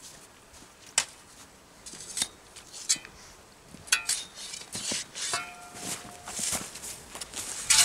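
Footsteps crunching over loose soil and a steel spade knocking and clinking a few times as it is carried. A loud rustle comes near the end.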